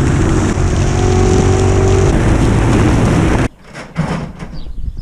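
Quad bike engine running steadily while riding. It cuts off abruptly about three and a half seconds in, followed by a few short clicks and knocks.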